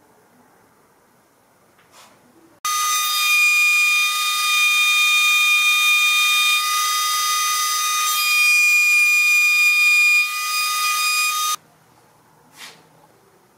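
Table-mounted router running at full speed, a steady high whine that comes in abruptly a few seconds in and cuts off about nine seconds later, as a small wooden block is fed across its straight bit.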